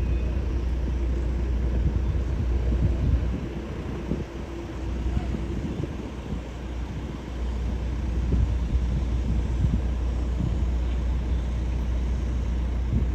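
Jet airliner engines rumbling steadily, with wind buffeting the microphone; the sound eases for a few seconds midway, then builds again.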